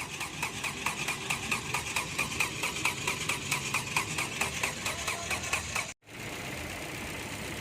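Ford Fiesta's starter motor cranking the engine with an even rhythm of about five pulses a second, not yet catching; the mechanic puts the hard starting down to a weak, old battery. About six seconds in the sound cuts out abruptly and gives way to the engine running steadily.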